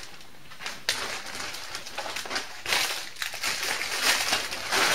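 Pastry packaging, paper and plastic wrapping, rustling and crinkling as it is handled, growing busier and louder in the second half. A sharp click comes about a second in.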